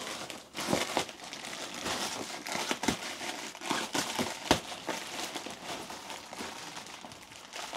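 Plastic wrap around a roll of thermal wool insulation crinkling and rustling as it is handled, with frequent sharp crackles.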